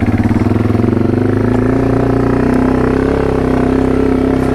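Yamaha TW200's air-cooled single-cylinder four-stroke engine idling with a pulsing beat, then rising about a second in to a steady, higher speed as the bike pulls away.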